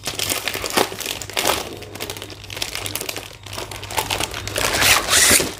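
Plastic crinkling and rustling as a plastic fridge mat sheet is pulled out of its plastic packet, in irregular rustles that are loudest about five seconds in.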